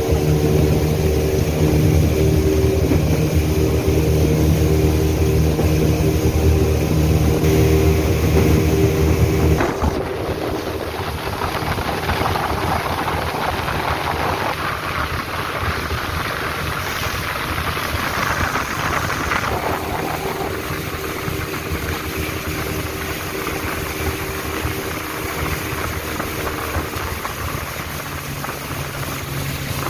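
Motorboat engine running steadily, then dropping suddenly in level about ten seconds in. After that a rushing sound of water and wind takes over, with the engine hum fainter until it comes up again near the end.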